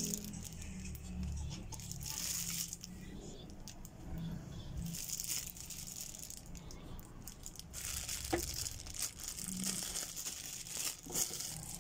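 Clear plastic wrapping crinkling in irregular bursts as it is handled and pulled off an item.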